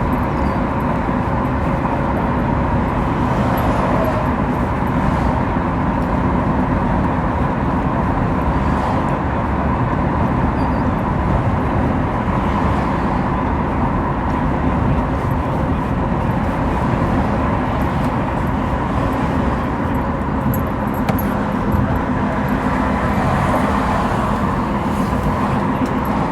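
Steady road and engine noise inside a moving car's cabin while driving.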